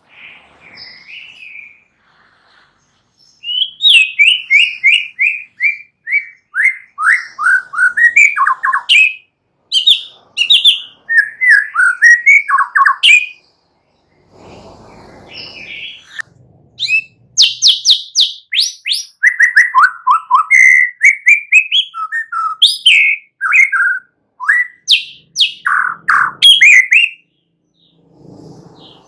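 White-rumped shama singing: rapid runs of clear, short whistled notes, many sliding down in pitch. It comes in two long bursts with a pause of a few seconds midway.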